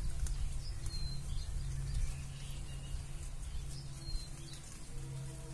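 Steady low outdoor hum with two short, high bird chirps, about a second in and about four seconds in.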